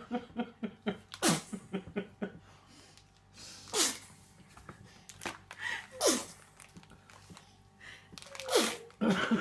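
A baby sneezing about five times, each sneeze a short, sharp burst that drops quickly in pitch, spaced one to two and a half seconds apart. Early on, a quick patter of short voice sounds follows the first sneeze.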